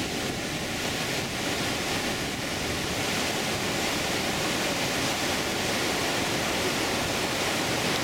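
Niagara River rapids above the American Falls rushing: a steady, unbroken wash of whitewater noise.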